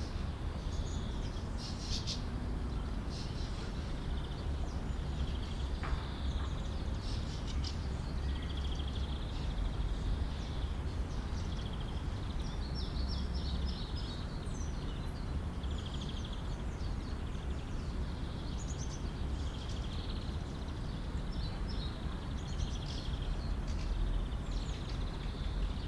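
Urban park ambience: many small birds chirping and trilling over a steady low background rumble.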